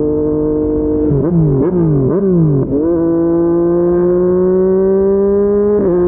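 Yamaha MT-09's three-cylinder engine through a Yoshimura R55 slip-on exhaust, ridden. The note is steady, then sags and jumps back up three times in quick succession, as in quick downshifts while slowing. It then settles into a steady, slowly rising drone, with a brief shift in pitch near the end.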